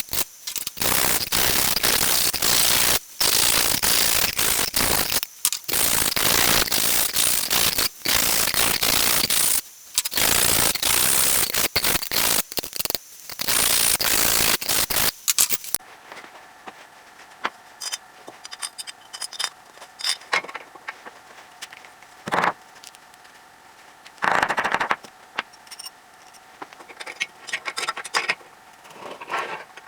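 A loud workshop machine runs in stretches, with brief sudden stops, then goes quiet about halfway through. After that come scattered mechanical clicks and scrapes, with two short louder bursts.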